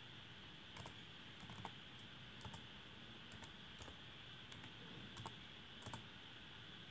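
Faint, irregular keystrokes on a computer keyboard as a few letters are typed, over a steady faint hiss.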